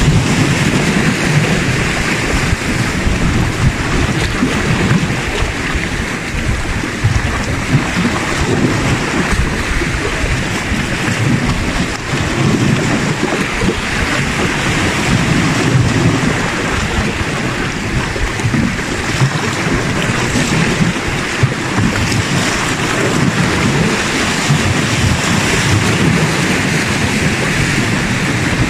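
Sea waves washing and splashing against shoreline rocks in a steady noisy wash, with a low rumble of wind on the microphone that swells and eases.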